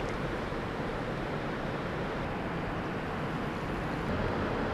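Steady wind noise rushing on the microphone, with no distinct event.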